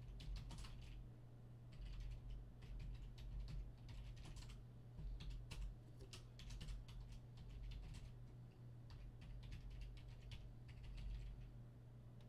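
Computer keyboard being typed on: irregular runs of short clicks, over a low steady hum.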